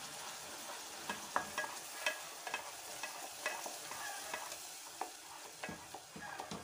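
Wooden spoon stirring hot caramel sauce, with butter and cream just mixed in, in an aluminium saucepan: it scrapes and knocks against the pan about twice a second over a faint sizzle.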